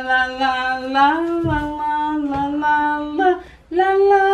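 A woman singing in long held notes that glide slowly. She breaks off briefly about three and a half seconds in and comes back on a higher note.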